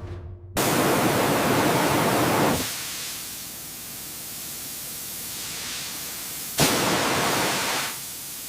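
Loud hissing noise that starts suddenly about half a second in, softens to a lower hiss about two seconds later, and comes back loud for about a second near the end.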